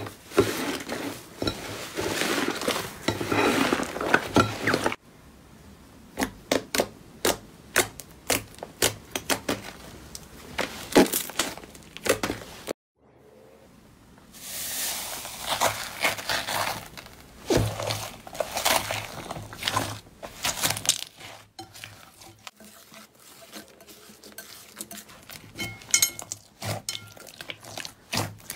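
Hands squishing, stretching and pressing slime in a bowl: sticky squelches with many sharp pops and clicks as trapped air bursts.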